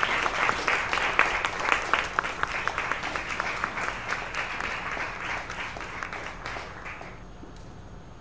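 A small crowd of spectators clapping for a point just won, dense at first, then thinning and dying away about seven seconds in.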